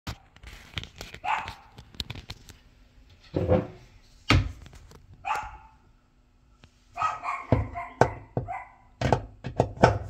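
A dog barking in short bouts, with sharp knocks and clicks in between.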